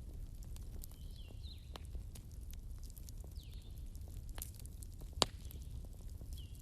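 Bonfire of burning wood crackling, with irregular sharp pops over a low steady rumble of flames and one loud pop about five seconds in. A few faint high whistles sweep downward now and then.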